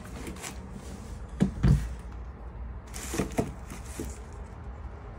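A few short, dull knocks in a quiet room, two close together about one and a half seconds in and two more about three seconds in, over a steady low rumble.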